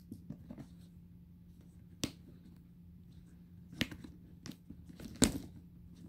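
Metal clasps on a Dooney & Bourke leather handbag clicking as they are worked open and shut: four sharp clicks a second or so apart, starting about two seconds in, the last one the loudest.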